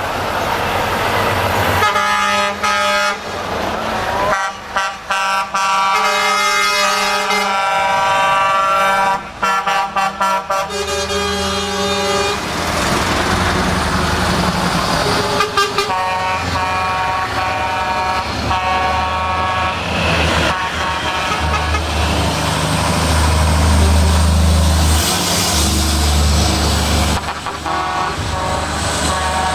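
Air horns on passing show trucks sounding in a series of long multi-note blasts, with the low rumble of the trucks' diesel engines as they go by in the second half.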